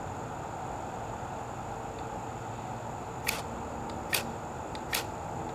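Three short, sharp scrapes of a knife blade worked at a small wood-burning camp stove, under a steady high insect drone.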